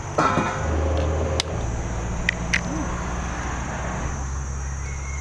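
A low, steady motor rumble that shifts slightly in pitch a couple of times, with a few light clicks over it.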